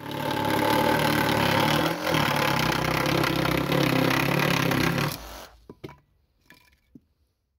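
Cordless saw running on an 18 V lithium-ion battery pack, cutting through a wooden board for about five seconds before it stops. A few light knocks follow.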